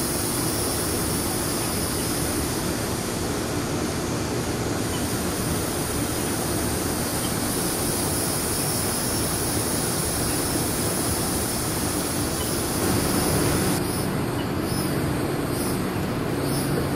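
Steady background noise with a low, even hum.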